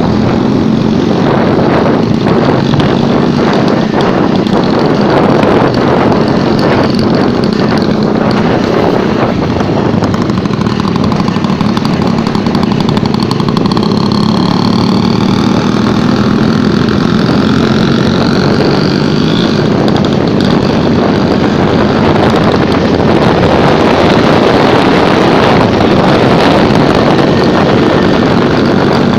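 Vespa scooter engine running steadily, with pitch rising and falling somewhat in the middle as it is revved or ridden.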